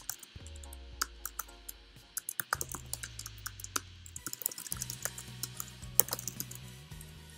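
Computer keyboard being typed on: quick, irregular key clicks, in runs with short pauses, over soft background music with sustained low notes.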